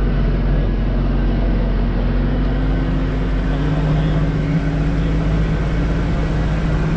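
Vehicle engine running steadily while driving, a loud low drone whose pitch rises slightly a few seconds in.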